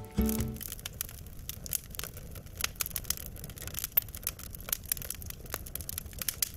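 Firewood burning in a campfire pit, crackling with many sharp, irregular snaps and pops over a low hiss.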